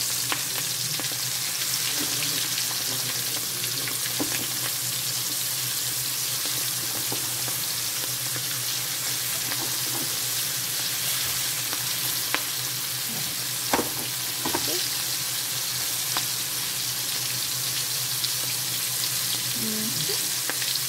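Flour-coated shrimp deep-frying in hot oil in a wok: a steady sizzle, with a few sharp clicks a little past the middle.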